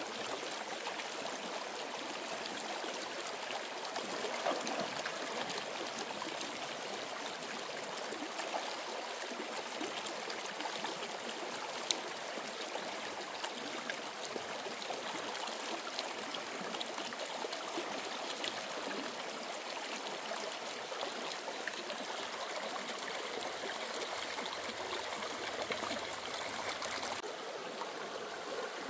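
Running stream water, a steady rushing with no pauses, and one sharp click about twelve seconds in.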